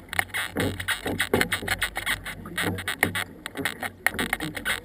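Canoe paddles dipping and pulling through the water, with irregular splashing and slaps of water against the hull, and wind rumbling on the boat-mounted camera's microphone.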